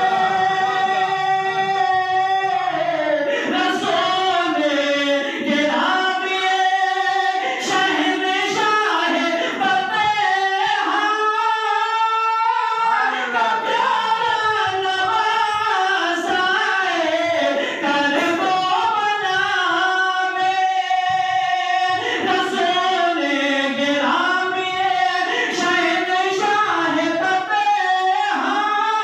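A male reciter's solo, unaccompanied melodic chanting into a microphone, one long held note at the start, then ornamented phrases that glide up and down in pitch without a pause.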